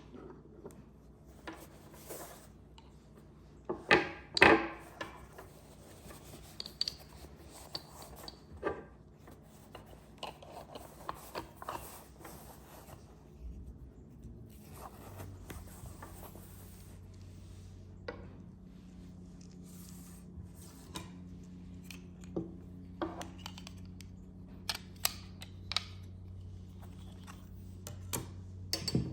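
Hands handling the parts of a panoramic tripod head: scattered clicks, knocks and rubbing, the loudest two knocks about four seconds in. A low steady hum comes in about halfway.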